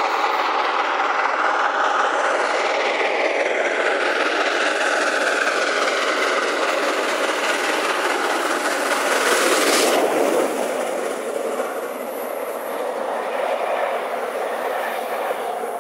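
Train running along the rails, a steady dense rush of rail noise with faint sliding tones. About ten seconds in it changes abruptly and goes on quieter and thinner.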